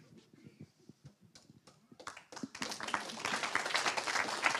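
Audience applause: a few scattered claps, then a spread of clapping rising from about two seconds in.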